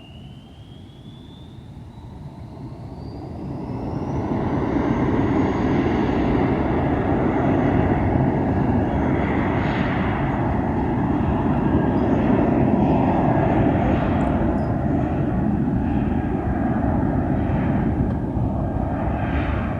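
Twin GE90 jet engines of a Boeing 777-300ER on its landing, growing louder as the aircraft comes close. A whine rises in pitch over the first few seconds, then a loud steady jet rush.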